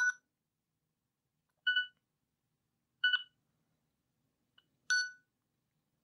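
Nokia 6680 mobile phone: a ringtone preview cuts off at the start, then three short electronic key beeps sound about a second and a half apart as the navigation key scrolls down the ringtone list.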